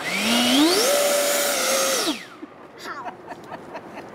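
70mm electric ducted fan of an FMS Yak 130 RC jet in a static run-up: a whine rising in pitch over about a second, held at high throttle for about a second, then winding down about two seconds in.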